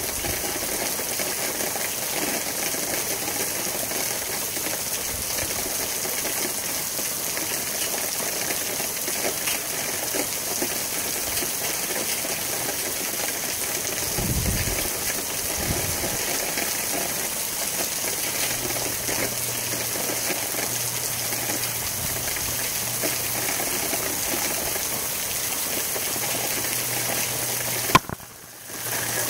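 Tropical-storm wind and rain as a steady rushing hiss, with wind buffeting the microphone in low thumps around the middle. A faint low hum joins in after the middle, and near the end a sharp click is followed by a brief drop in level.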